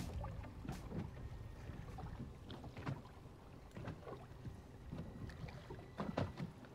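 Water lapping against the hull of a small drifting fishing boat, with light wind on the microphone and scattered knocks and clicks.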